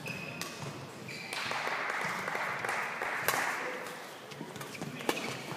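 Badminton rally: a few sharp cracks of racket strings hitting the shuttlecock, a second or more apart, with a stretch of applause in the middle.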